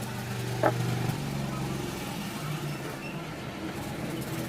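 Vehicle engine running with a steady low hum, with one short high-pitched beep about two thirds of a second in.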